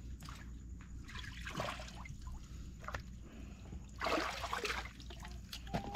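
Shallow seawater sloshing and trickling around a wading person's feet, with a louder splash about four seconds in.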